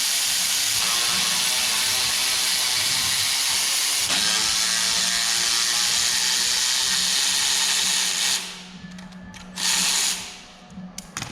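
Pneumatic air ratchet running with hissing exhaust air and a steady motor hum, in one long run of about eight seconds, then a short burst near the end.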